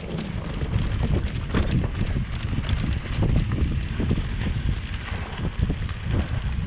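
Norco Range VLT electric mountain bike being ridden over rough, rocky trail: tyres and frame rattling and knocking over rocks, with heavy wind noise on the microphone.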